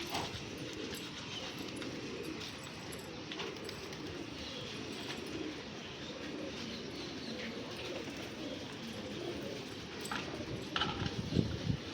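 Pigeons cooing, a continuous low warbling murmur from several birds. A few low thumps come about a second before the end.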